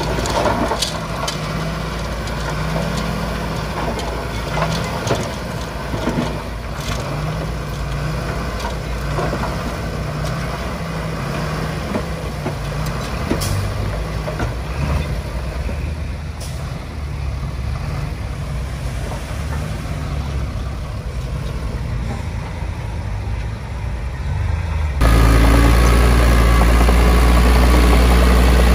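Diesel engines of a 5-ton dump truck and a Komatsu D20P bulldozer running as the truck tips and empties its load of soil and stone, with scattered knocks from the falling load in the first several seconds. About 25 seconds in the sound jumps abruptly to a louder, steady low engine drone.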